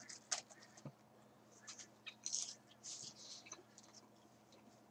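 Faint eating and food-handling noises: small clicks and crackles as battered fried food from a fish and chip basket is picked up and chewed.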